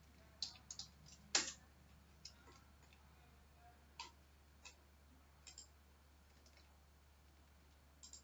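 Faint, scattered clicks of a computer mouse and keyboard, a dozen or so at uneven intervals, the sharpest about a second and a half in, over a steady low hum.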